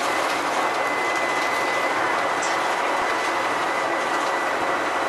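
Bus cruising steadily at speed, heard from a seat over its rear engine: an even mix of engine and road noise with a thin, constant high whine.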